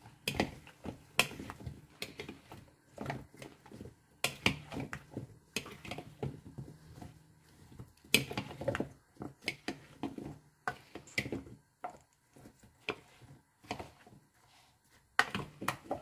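Metal fork and spoon knocking and scraping against a bowl as seasoned green banana pieces are stirred and tossed. The clicks and knocks are irregular, with a quieter stretch near the end.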